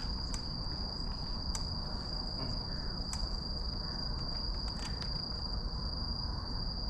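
Crickets or similar insects trilling in one continuous, steady high note, over a low rumble of wind and riding noise.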